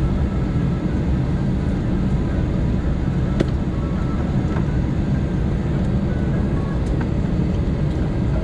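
Steady cabin noise inside an Airbus A319 taxiing: an even low rumble from the engines at taxi power and the airframe rolling on the taxiway, with a couple of light clicks.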